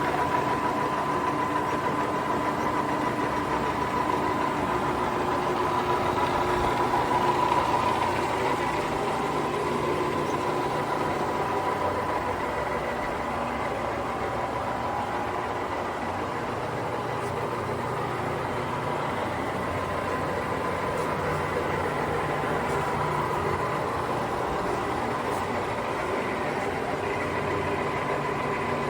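Lion C13MB gap-bed engine lathe running under power, its spindle and geared headstock turning with a steady hum and a steady whine.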